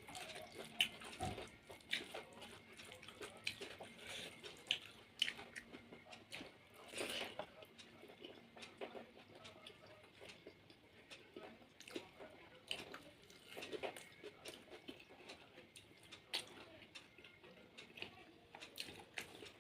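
A person eating: chewing and lip-smacking, with many irregular soft clicks and wet mouth sounds.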